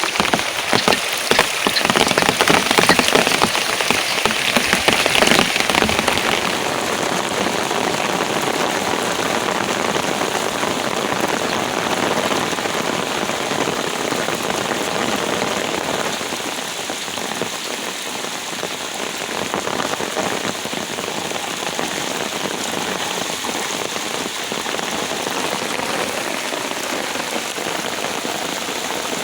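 Heavy rain falling, a dense steady hiss, a little louder and sharper for the first six seconds or so.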